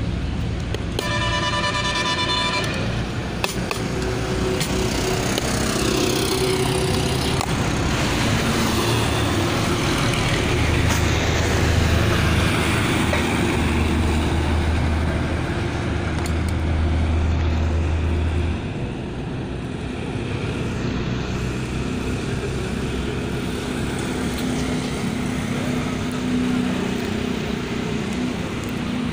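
Roadside traffic: vehicle engines running steadily, with a vehicle horn sounding once for under two seconds near the start. A strong low drone runs through the middle and stops suddenly about two-thirds of the way through.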